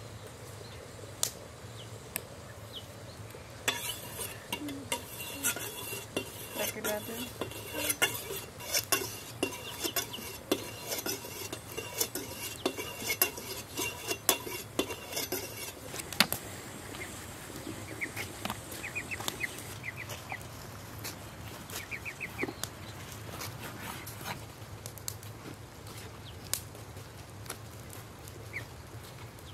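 Kitchen knife cutting raw meat on a wooden cutting board: irregular knocks of the blade against the board, thick and quick for much of the first half, then sparser.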